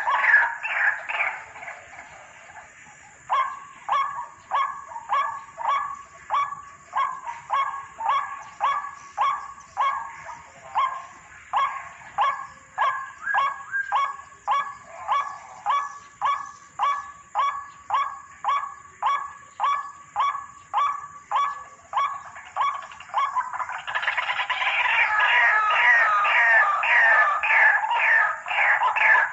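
White-breasted waterhen calling: a long, even series of harsh downward-sweeping notes, about one and a half a second, after a dense burst of overlapping calls at the start and a short pause. Near the end the calling turns into a fast, overlapping chorus.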